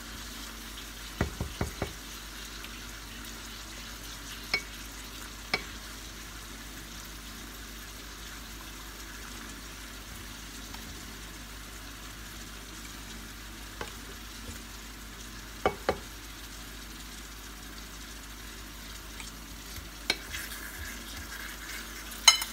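Sweet potato slices frying in oil in a nonstick pan, a steady sizzle throughout. A wooden spatula and fork turn and lift the slices, knocking sharply against the pan a few times: a quick cluster about a second in, a couple more mid-way, and the loudest knock near the end.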